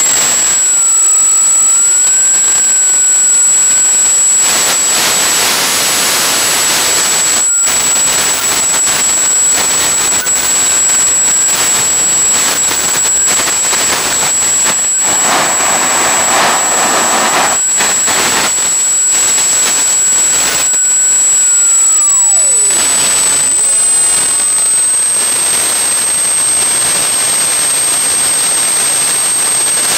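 Homemade 200-pound-thrust turbojet engine running steadily at high power: a loud roar with a high, steady turbine whine. About two-thirds of the way through, the whine steps up slightly in pitch.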